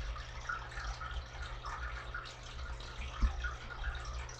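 Faint trickling and dripping water over a steady low hum, with one soft thump a little past three seconds in.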